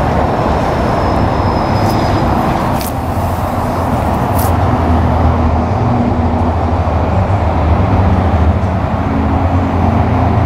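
Tri-Rail commuter train approaching, its diesel engine drone growing stronger partway through over a steady wash of road traffic, with a few short clicks about two to four and a half seconds in.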